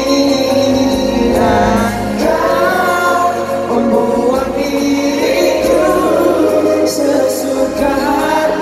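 Live pop ballad performance: a sung melody with instrumental backing over a large arena sound system, heard from among the audience.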